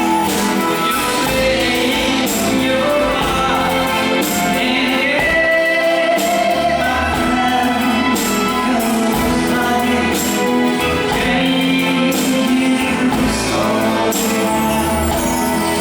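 Live pop band playing a song with lead vocals, backed by a steady beat with regular cymbal or tambourine hits.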